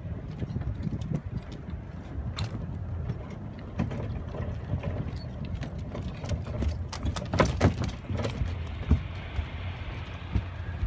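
Footsteps on a dock gangway ramp: a person's steps knocking on the boards and a Queensland Heeler's claws clicking, with a steady low rumble underneath. The clicks and knocks get louder and closer together about seven seconds in.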